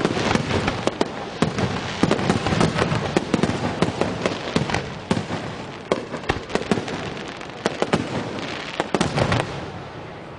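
Finale barrage of drum-can fireworks fired from the sea: many sharp bangs in quick succession over continuous crackling, thinning out near the end.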